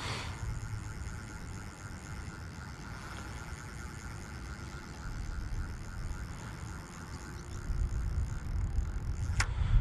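Low, steady outdoor rumble of wind on the microphone, growing louder over the last couple of seconds, with a sharp click at the start and another near the end.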